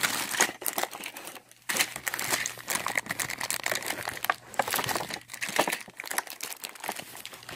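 Clear plastic wrapping on a toy train crinkling and rustling in the hands as the toy is unwrapped: a dense run of irregular crackles, with a short lull about a second and a half in.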